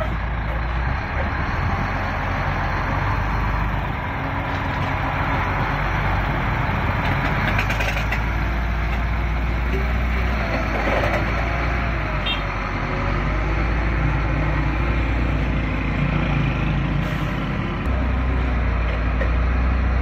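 Concrete mixer truck's heavy diesel engine running steadily, a continuous low engine noise.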